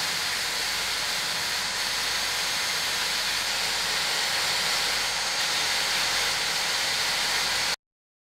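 Sandblasting cabinet's blast gun spraying beads of blast media at a rusty steel radio chassis to strip the rust: a steady hiss of air and grit that cuts off suddenly near the end.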